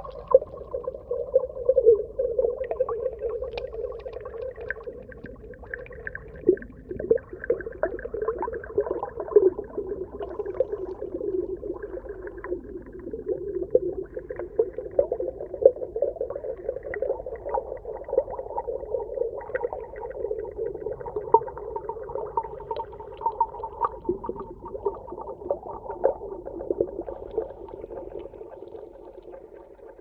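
Muffled underwater sound of moving water with many small crackles and clicks, fading out near the end.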